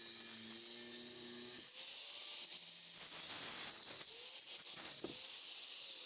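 Angle grinder running at high speed, a hissy whine whose pitch sags and recovers several times as the tool is loaded and eased off.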